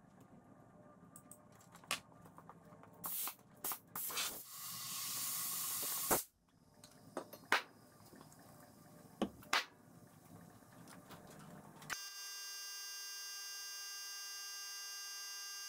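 Bead seater dumping a blast of compressed air into a trailer tire, a hiss lasting about two seconds that ends in a sharp loud pop as the bead seats on the rim, followed by a few more sharp snaps. From about twelve seconds in, a steady buzzing tone.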